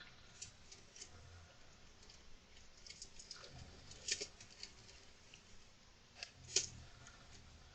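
Golden hamster moving and scratching about in its enclosure: faint, scattered scratches and clicks, the loudest about halfway through and again near the end.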